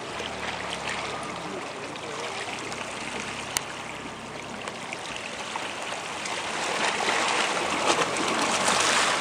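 Sea surf washing and splashing over lava rock at the shoreline, an even rush of water that swells louder in the last couple of seconds. A single sharp click a little over a third of the way through.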